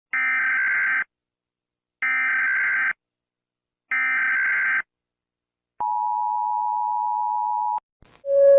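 Emergency Alert System alert tones: three short bursts of the raspy digital SAME header data, each about a second long and a second apart, then the two-tone attention signal, a steady dual tone held for about two seconds. A different, lower steady tone sets in at the very end.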